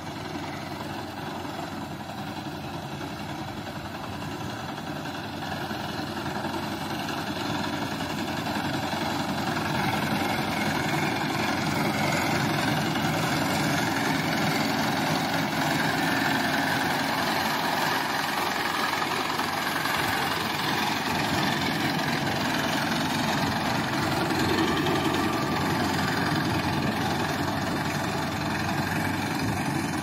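Fiat 480 tractor's three-cylinder diesel engine running steadily as it drives a front-mounted reaper through standing wheat. It grows louder over the first ten seconds or so as the tractor draws near.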